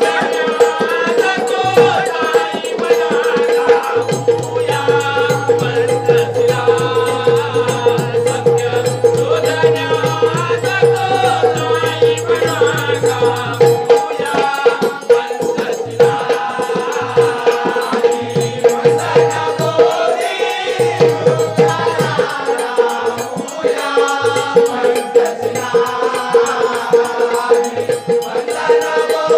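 Bhim geet sung live with instrumental accompaniment. A singing voice winds over a steady held drone, with rhythmic percussion that includes a rattling, jingling shake.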